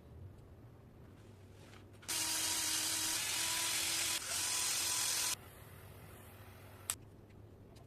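A workshop tool runs in one steady hissing burst of about three seconds, with a faint steady whine inside it and a brief dip near the end. A single sharp click follows about a second and a half later.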